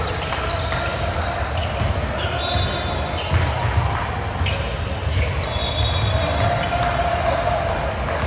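Basketball game sounds in a gym: a ball bouncing on the court among scattered thuds and knocks, with voices in the background.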